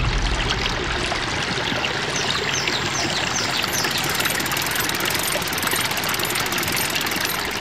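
Rushing river water over rapids, a steady full hiss. A bird's quick run of about six high, falling chirps comes about two to three and a half seconds in.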